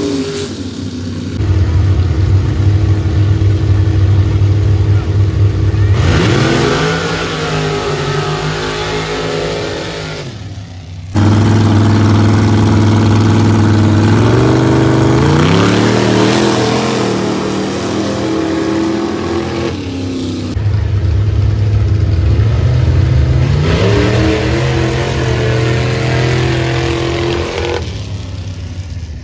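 Drag-racing pickup truck engines on a dirt drag strip, in three back-to-back passes cut together. In each, the engines run loud and steady, then rise sharply in pitch as the trucks launch and accelerate away, and the sound fades off before the next pass cuts in.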